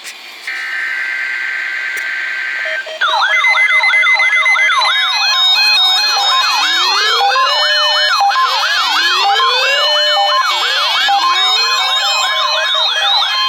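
NOAA Weather Radio required weekly test. It opens with a short burst of buzzy SAME header data tones. From about three seconds in, several weather alert radios sound their alarms together: quick repeated sweeping warble tones and slower rising siren-like glides, over a steady 1050 Hz warning alarm tone.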